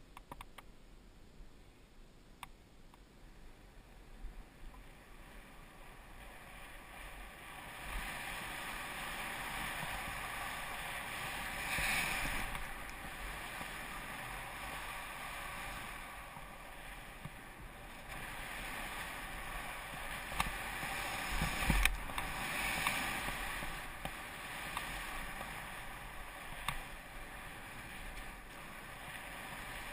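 Skis hissing through soft powder snow, quiet at first and then louder, swelling and easing with each turn. A few light clicks and one low thump a little past two thirds of the way through.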